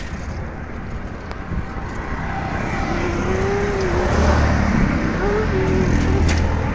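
Road traffic and wind rumbling over the microphone while riding a bicycle on a busy road. A thin wavering tone joins in about three seconds in.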